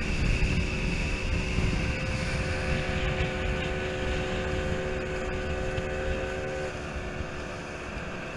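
Outboard motor driving a small boat at speed, with rushing water and wind buffeting the microphone. A steady engine hum rides over the rumble and drops away a little before the end.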